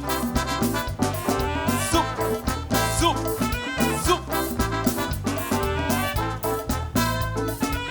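Calypso band playing an upbeat instrumental introduction, brass carrying the melody over a steady, driving beat.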